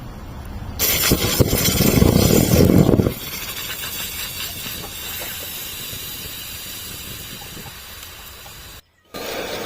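Rechargeable batteries burning in a bonfire, hissing. A loud, rough rushing hiss starts about a second in and lasts about two seconds, then eases into a steadier hiss, which cuts off briefly near the end.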